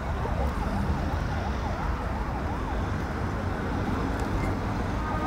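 Distant emergency vehicle siren on a fast yelp, its pitch rising and falling about three times a second, over a steady low rumble. The siren fades out a little past halfway.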